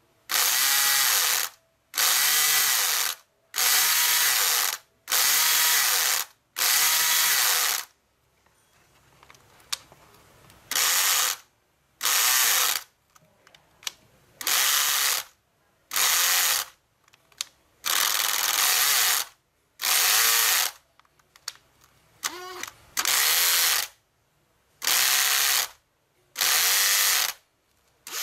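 Cordless drill run in short trigger pulses of about a second each, the motor spinning up and winding down each time, about fifteen times with a short pause partway through. The drill is being run at different load settings while its starting and stall current draw is measured.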